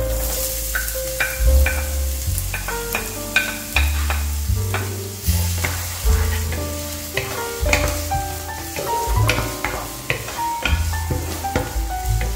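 Chopped onion dropping into hot oil in a nonstick frying pan and sizzling, stirred with a wooden spoon. Background music with piano-like notes and a bass line plays alongside.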